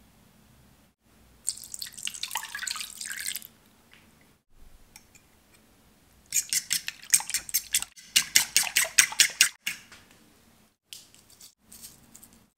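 Milk poured into a ceramic bowl over a raw egg, a splashing pour of about two seconds. Then a metal fork beats the egg and milk against the bowl in two runs of quick, regular strokes.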